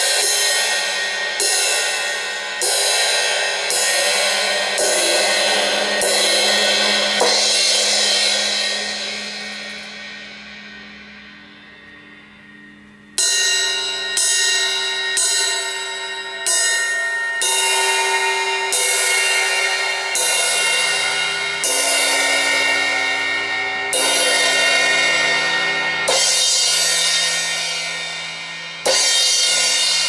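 Zildjian A Custom crash cymbals struck repeatedly with a drumstick, about once a second, each hit washing into a long shimmer. First the 17-inch crash is hit several times, then left to ring and die away for several seconds. About halfway through the strikes resume on the 15-inch crash and carry on to near the end.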